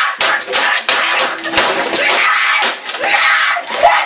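Rapid, loud banging and crashing, with a boy screaming in places.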